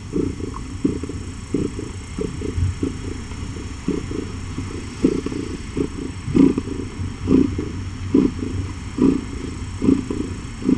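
Nursing mother cat purring, a low rumble that swells in uneven pulses about once a second.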